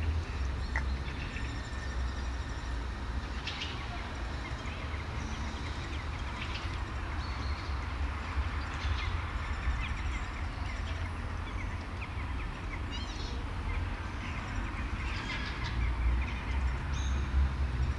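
Outdoor ambience: a steady low rumble with small birds chirping here and there.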